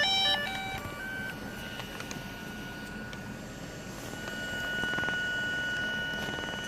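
A short electronic chime of descending beeps, then a steady high-pitched whine from a camera gimbal's motors, with a second, higher tone joining about four seconds in. It is the abnormal gimbal noise.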